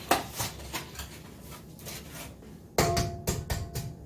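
Eggs being tapped and cracked on the rim of a stand mixer's stainless steel bowl: a few light clicks and taps, then a quick cluster of sharp knocks about three seconds in that set the metal bowl ringing briefly.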